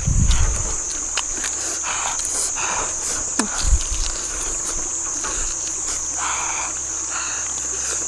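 Steady high-pitched drone of insects, with crunching now and then as grilled frog is chewed.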